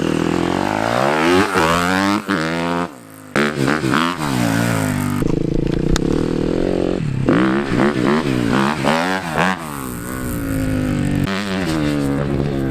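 Dirt bike engine being ridden hard, revving up and easing off several times, its pitch climbing and then dropping back with each gear, with a brief drop in the throttle about three seconds in.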